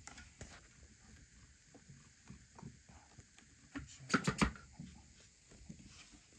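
Kitten moving about inside a round plastic container with a clear plastic dome, making faint scratching and rustling. About four seconds in there is a short cluster of louder knocks and rubbing as a hand handles the dome.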